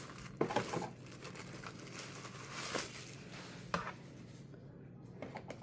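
Packaging rustling and crinkling as items are taken out of a box, with a couple of light knocks.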